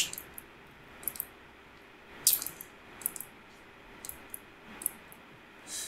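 Quiet room tone with several short, light clicks scattered about a second apart.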